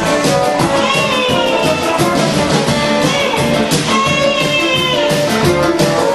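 Lively instrumental music with a steady beat accompanying the act.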